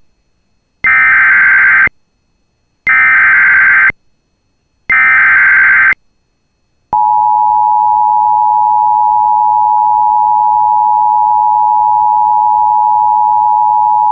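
Emergency Alert System SAME header: three one-second bursts of warbling data tones, a second apart. Then, about seven seconds in, the steady two-tone EAS attention signal begins and holds. Together they mark the start of a broadcast alert, here a severe thunderstorm warning.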